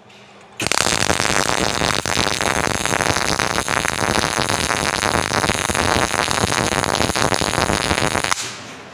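MIG welding arc running steadily with wire speed and heat correctly set for the metal: an even, constant crackle like potatoes frying in oil, the sign of a proper weld. The arc strikes about half a second in and stops shortly before the end.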